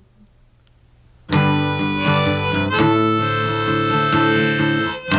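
Instrumental music: after about a second of near silence, harmonica and guitar come in together and play on, with a brief dip just before the end.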